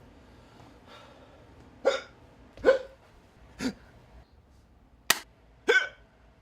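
A person hiccuping: five short, sharp hiccups, roughly a second apart.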